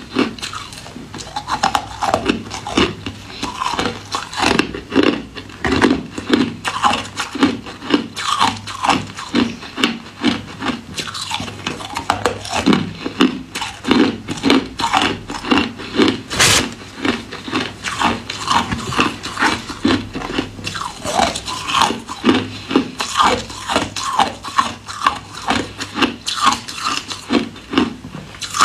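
Ice being bitten and chewed close to the microphone: a continuous run of crisp crunches, several a second, with one louder sharp crack a little past halfway.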